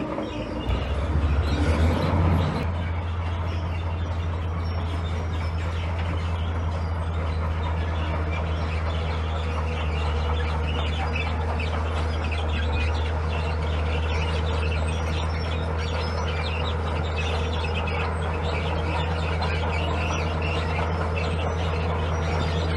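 Heavy diesel earthmoving machine running steadily with a deep, even drone. Many short high squeaks run over it, and it is briefly louder in the first couple of seconds.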